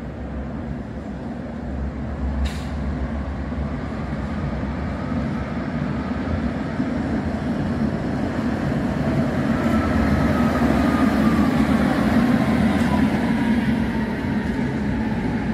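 Tram running on its rails, a steady rumble that grows louder toward the middle. There is one sharp click a couple of seconds in, and a faint falling whine in the second half.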